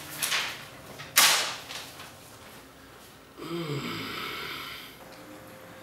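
Glossy magazine pages being flipped: two quick paper swishes, the second and louder about a second in. Then a man's breathy, wordless hum for about a second and a half.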